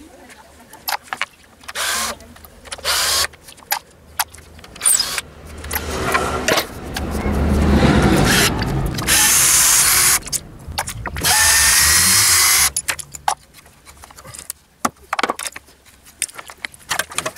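Cordless drill-driver backing screws out of wooden formwork boards: several short bursts of the motor, then one long run of several seconds starting about six seconds in. Near the end come a series of sharp knocks and clicks.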